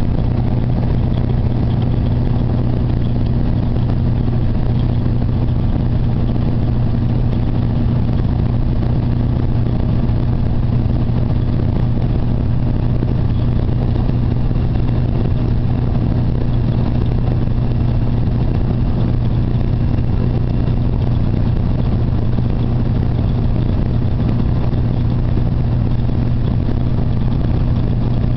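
Truck engine droning steadily at cruising speed, with tyre and road noise, heard from inside the cab. It holds an even pitch with no changes.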